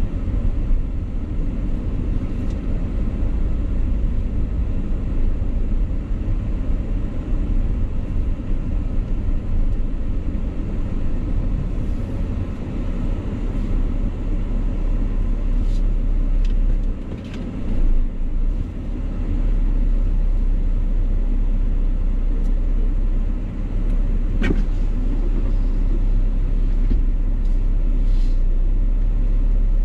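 Steady low rumble of a car driving slowly on a road, engine and tyre noise heard from inside the car, with a few brief ticks, the clearest about three-quarters of the way through.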